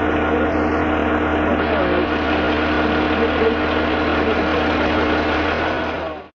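An engine running steadily at a constant speed, most likely the crane's engine lifting the wrecked car on straps, with a steady low hum under it.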